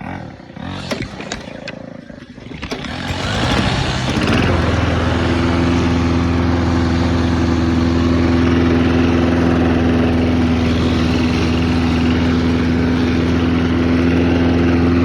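A Briggs & Stratton auto-choke engine on a Snapper self-propelled push mower starting up. It catches about three seconds in, runs up, and by about four and a half seconds settles into steady, even running.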